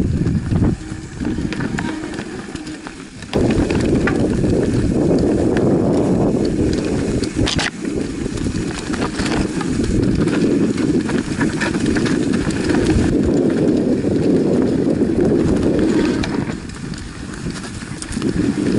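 Mountain bike rolling down a rough, stony singletrack, heard from a bike-mounted action camera: a continuous rumble with the clatter and knocks of the bike and tyres over stones and roots. It gets louder about three seconds in and eases near the end.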